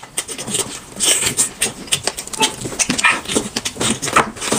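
Dog eating, with a fast, irregular run of short chewing and smacking clicks.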